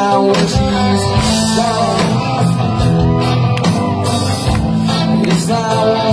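Live rock band playing a slow song: electric guitars, bass and drums, with a man singing over them.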